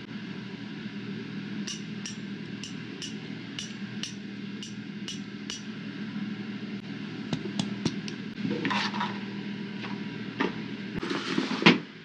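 Metal GPCA X Grip carabiner being handled and its screw-lock gate worked: a run of about nine crisp metal clicks, roughly two a second, then a few quicker clicks. Rustling handling noise follows, ending in a loud knock near the end, over a steady low hum.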